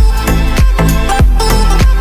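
Background electronic dance music with a deep, steady drum beat repeating a little under twice a second over a bass line.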